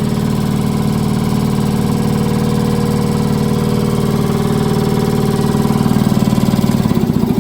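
Ingersoll Rand 7100E 15 hp two-stage air compressor pump running with a fast, even pulsing beat. Near the end the deep rumble drops away and the beat begins to slow.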